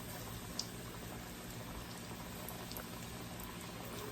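Flour-and-cornstarch-coated chicken bites deep-frying in vegetable oil at about 380 degrees: a steady bubbling sizzle with a few small crackles.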